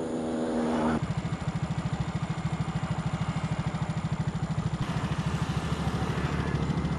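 A small engine running steadily, heard as a rapid, even low pulsing. About a second in, a steady pitched hum breaks off abruptly and the pulsing takes over.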